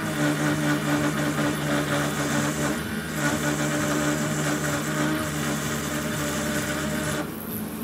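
800-watt high-speed spindle of a homemade drill press running while a carbide bit drills a small hole in stainless steel, dry, with no lubrication. A steady hum with a hissy cutting noise over it, dipping briefly about three seconds in and again near the end.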